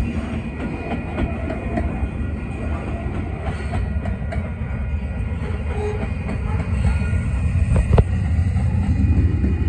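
Covered hopper cars of a freight train rolling past close by: a steady low rumble of steel wheels on rail with clicks at the joints. There is a sharp knock about eight seconds in, and the rumble grows louder near the end.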